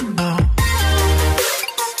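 Background electronic music with a deep bass, regular drum hits and pitched synth lines, one sliding down in pitch near the start.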